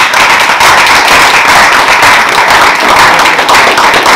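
A roomful of people clapping in steady applause.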